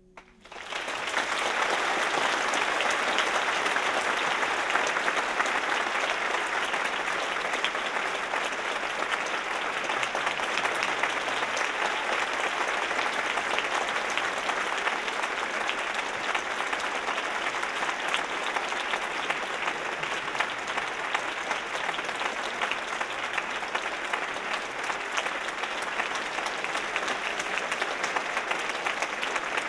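Audience applauding, starting about half a second in as the last note of the music dies away, swelling within a second and then holding as dense, steady clapping.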